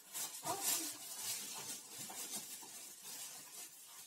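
Soft, irregular rustling and light clicks as a fork and hand press corn sticks into a bowl lined with a plastic bag. A brief vocal sound comes about half a second in.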